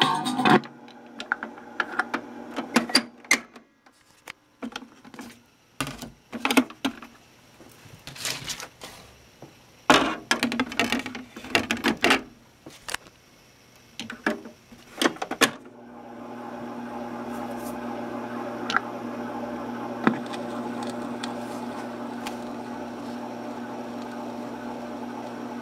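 Fisher-Price toy record player being handled: the music stops as the plastic tone arm is lifted, followed by a run of sharp clicks and plastic knocks while records are swapped. About two-thirds of the way through, a steady hum starts from the player as the record turns under the needle.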